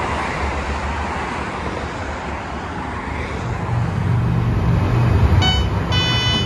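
Train noise at a station platform: a steady low rumble under a broad hiss, growing stronger a few seconds in. Near the end a high electronic beeping starts, pulsing on and off in short bursts.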